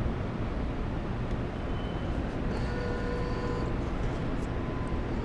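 Steady arcade din: a low rumble of machines and room noise, with faint electronic tones from game machines sounding briefly around the middle.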